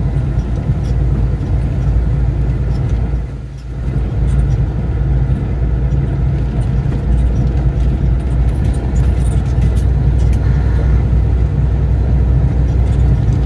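Semi truck's diesel engine running steadily with road noise, heard from inside the cab; the sound dips briefly about three and a half seconds in.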